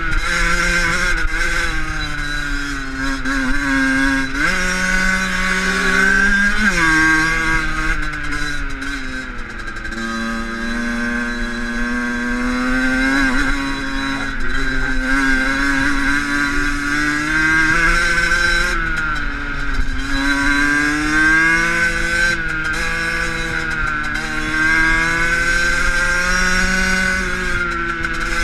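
Fantic Caballero 50 two-stroke dirt bike engine heard from on the bike, revving up and down under way, with the pitch dropping sharply at gear changes.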